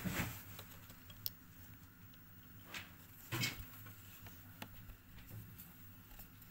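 Scattered light clicks and rustles as fingers handle the exposed tape mechanism of a National NV-7500 VHS recorder, the loudest about halfway through, over a faint steady hum.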